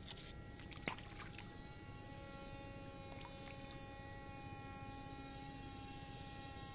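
Small brushless drone motor running steadily with a high whine, driving a model boat's propeller. A few sharp clicks come in the first second and a half, the loudest about a second in, and a second lower tone joins about two seconds in.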